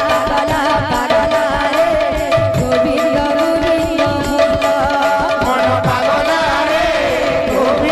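Live Sambalpuri kirtan music: devotional singing over sustained held notes and a steady rhythm of hand-drum strokes.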